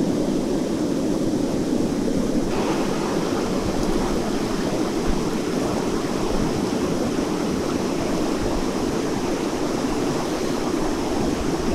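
Rushing mountain river: a steady, unbroken rush of water, turning brighter and hissier about two and a half seconds in.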